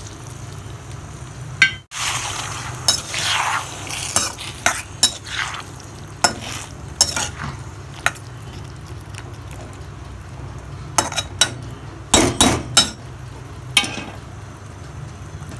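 Water hitting a hot iron kadhai of fried masala and taro sizzles briefly about two seconds in. Then a metal spoon scrapes and clinks against the iron kadhai in separate strokes as the curry is stirred.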